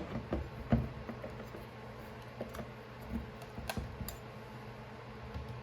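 Small metal chainsaw parts handled by hand: scattered light clicks and taps, more of them in the first second, over a faint steady hum.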